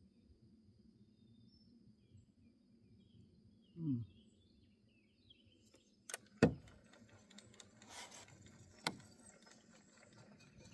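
Quiet outdoor background with faint bird chirps and a brief low falling sound about four seconds in, then a few sharp clicks and knocks from a rod and spinning reel being handled between about six and nine seconds in.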